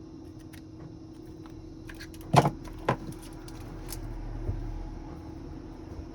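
Handling noises at a repair bench: a few light clicks and two sharp knocks about half a second apart, over a steady hum.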